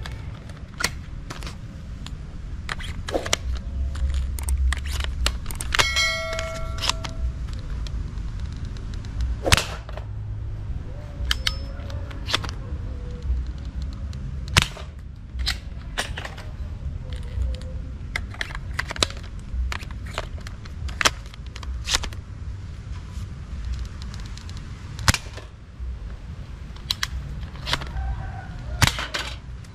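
Toy double-barrel shotgun being handled and fired: irregular sharp plastic clicks and snaps, a few of them louder, over a steady low rumble. Something rings briefly with a clear tone about six seconds in.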